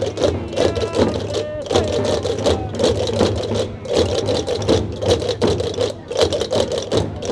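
Gomeran chácaras (large wooden castanets) clacking in a dense, rapid rattle over tambores gomeros, big goatskin-headed drums beaten with sticks by a group of players, for a traditional procession.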